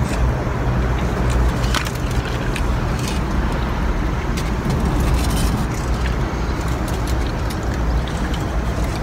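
Car engine idling, heard from inside the cabin as a steady low rumble, with scattered small clicks of handling.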